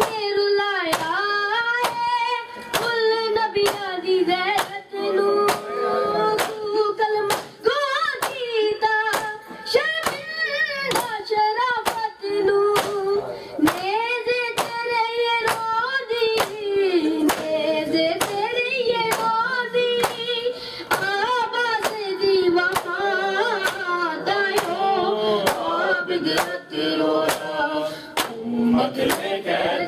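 A nauha (Shia lament) chanted over a microphone by a high, young-sounding voice, with mourners' open-handed matam slaps on their bare chests keeping time throughout.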